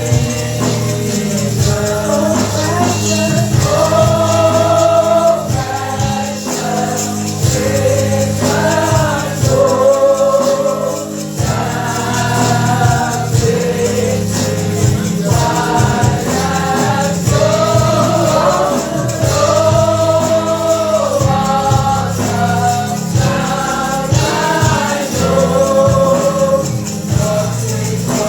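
Gospel worship singing: a choir singing with a band, tambourine shaking along, over a steady bass line.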